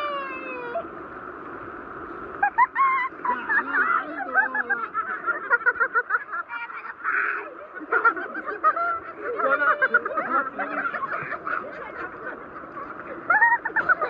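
Overlapping shouts and squeals from several people playing in waterfall water, over a steady rush of water.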